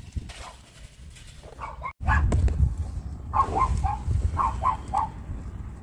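A dog barking repeatedly in short bursts of two or three barks. It has been left shut in a parked vehicle while its owner is away, and the barking is taken for unhappiness.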